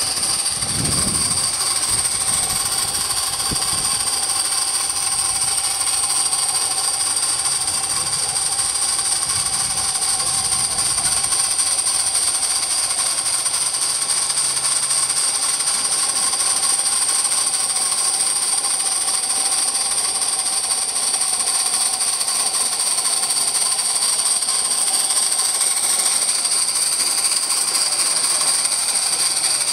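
Live-steam garden-scale locomotive running on its track, giving a steady hiss of steam with no distinct chuff.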